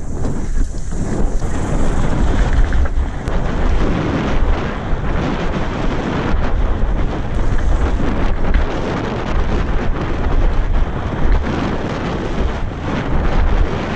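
A mountain bike ridden fast downhill, heard from a helmet-mounted camera: wind buffeting the microphone, with the tyres rumbling and the bike knocking and rattling over rough ground.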